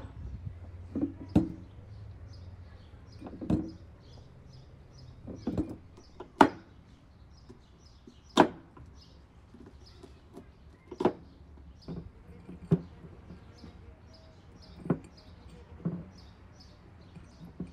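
Knife chopping through fresh corn cobs onto a wooden cutting board: single sharp knocks every one to two seconds. Small birds chirp faintly throughout.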